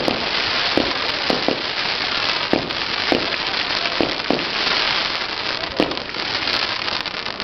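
Fireworks: a dense, continuous crackling hiss with sharp bangs going off irregularly, about eight of them.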